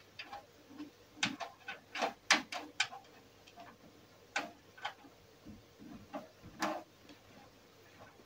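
Irregular clicks and knocks of computer parts being handled while a PC is assembled into its case. There is a quick cluster of sharp taps in the first few seconds and a few single knocks later.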